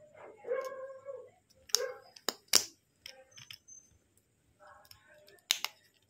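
Plastic housing of a Bluetooth neckband's control unit being pressed shut by hand, giving a few sharp clicks as its parts snap into place, the loudest about two and a half seconds in and another about a second before the end.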